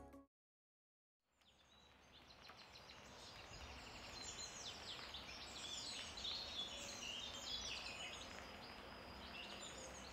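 Birds chirping and calling over a faint outdoor background, fading in after about a second of silence. The tail of a piece of music cuts off at the very start.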